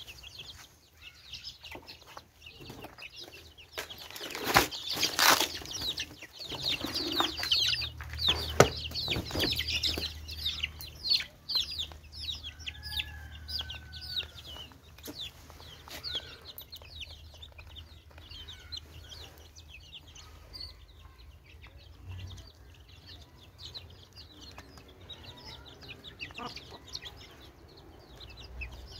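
A flock of young chicks feeding on termites, peeping in many short, high, falling chirps, with a hen clucking now and then. The chirping is busiest in the first half, where a few sharp knocks are the loudest sounds.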